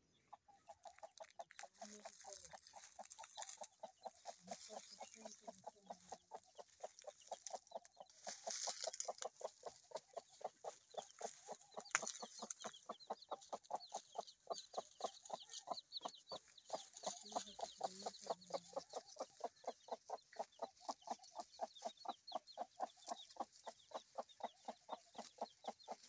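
Desi mother hen clucking to her chicks in a steady, even run of about three clucks a second, with the chicks' faint high peeps over it.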